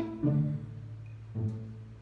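Background music: low string notes, two of them about a second apart, each fading after it sounds.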